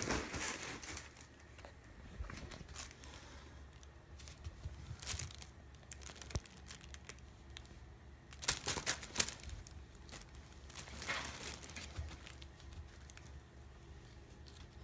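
Crinkly fabric of a cat play tunnel rustling and crackling as a kitten scrambles and slides in it, in several bursts: one right at the start, one about five seconds in, the loudest flurry around nine seconds, and another near eleven seconds.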